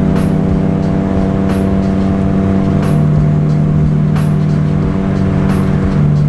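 A car cruising at a steady speed on a highway, heard from inside the cabin: a continuous engine drone with road noise, and a faint tick about every second and a half.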